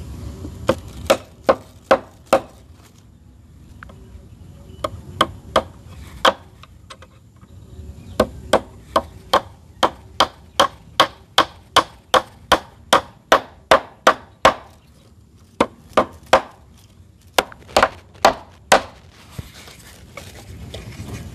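Repeated sharp strikes of a hand tool on wood, in several quick runs of about two to three blows a second with short pauses between them.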